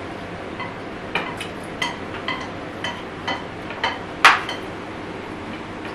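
Chopsticks and a spoon clinking against plates and the serving tray while eating: about a dozen light, separate clinks with a short ring, the loudest a little past four seconds in.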